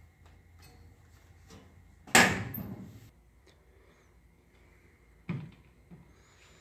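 A steel band saw blade being taken off an old floor-standing band saw: one loud metallic clang with a short ringing, rattling tail about two seconds in, and a softer knock about five seconds in.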